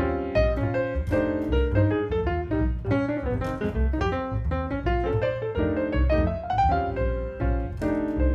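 Jazz piano playing a busy line over a plucked upright double bass.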